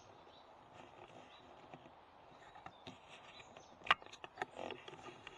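Grey squirrel at a wooden feeder box, making faint irregular taps and clicks as it climbs on and feeds. A sharper click comes about four seconds in, with a few more just after it.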